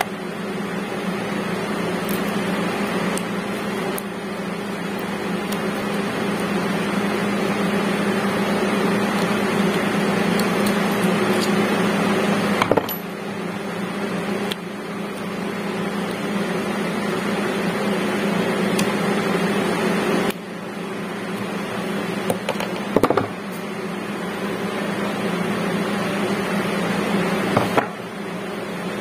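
Steady mechanical hum of a running motor or fan, with a few light clicks, briefly dropping in level three times.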